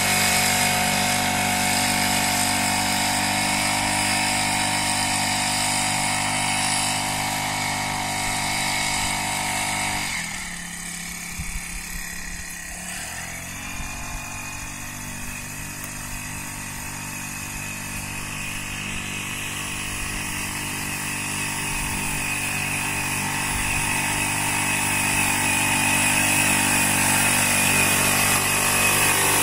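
Small engine of a motorized backpack sprayer running steadily as it sprays. It fades and dips slightly in pitch about ten seconds in, then grows louder again toward the end.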